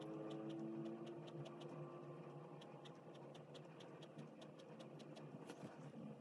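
Extra-fine steel nib of a Pilot Kakuno fountain pen ticking and scratching on paper in short, quick, irregular strokes, faint. A faint steady tone in the background fades away over the first couple of seconds.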